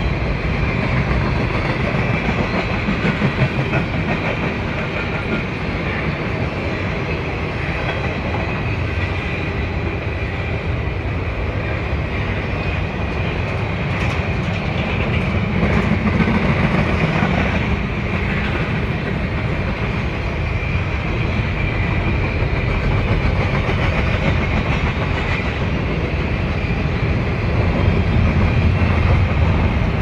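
Double-stack intermodal freight cars rolling past: a steady, continuous rumble with wheels clacking over the rail joints.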